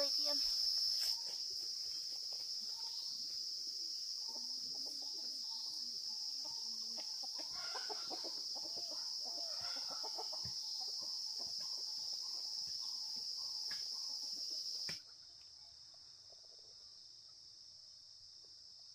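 Chickens clucking over a steady high-pitched insect chorus. About three-quarters of the way through, the whole sound drops abruptly to a quieter, steady insect hum.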